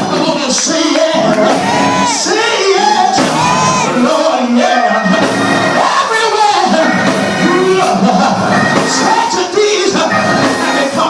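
Loud church music with many voices singing and shouting over it, as in a congregational praise break.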